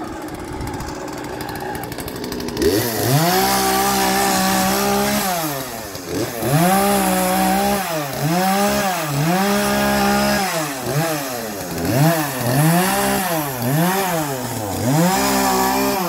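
Chainsaw idling, then revved up about two and a half seconds in. It is held at high speed in a series of revs, dropping back between each one, and the revs come quicker toward the end.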